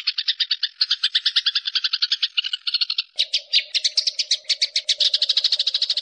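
House sparrows chirping in a fast, unbroken run of about eight chirps a second. A faint steady low hum joins about halfway.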